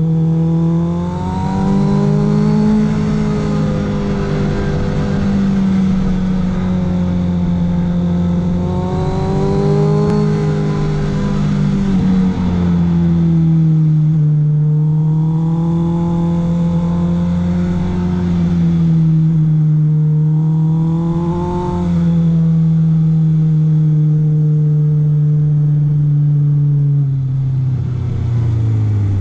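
Honda CBR650F's inline-four engine pulling uphill through a run of corners, its pitch rising and falling with the throttle several times, then dropping away near the end as the bike slows.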